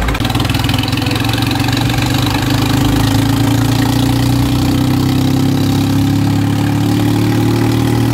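Swaraj 855 tractor's diesel engine pulling steadily on the road, its note slowly rising as it gathers speed.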